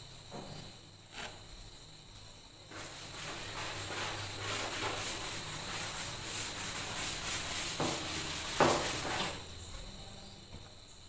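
Chalkboard duster wiping chalk off a chalkboard in quick back-and-forth rubbing strokes, starting about three seconds in and stopping about nine seconds in.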